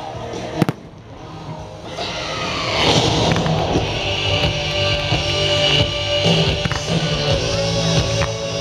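Fireworks display set to loud music: a sharp bang under a second in, then the music swells up about two seconds in with sustained notes, and shells crackle and pop underneath it.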